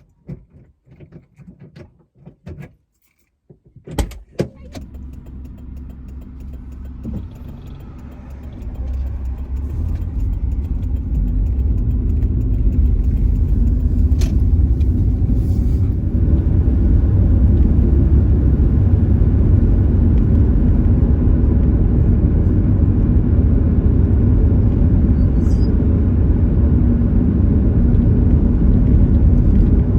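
A sharp click about four seconds in. Then the low engine and road rumble of a Subaru heard inside the cabin builds over several seconds as the car gets under way, and runs on steadily.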